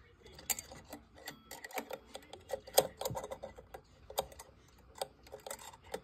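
Irregular clicks and knocks from a Howard Miller regulator wall clock's pendulum rod and brass pendulum leader being handled inside the wooden case. The loudest knock comes about three seconds in.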